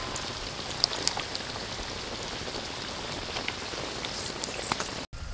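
Whole quail deep-frying in hot oil in a wok: a steady sizzle studded with sharp crackles and pops. It drops out for an instant near the end.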